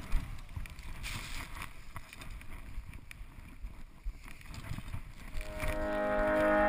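Skiing through deep powder, picked up by a GoPro Hero HD on the skier's helmet: a low rumble of wind and snow noise with scattered small knocks. Music fades in over the last second or so.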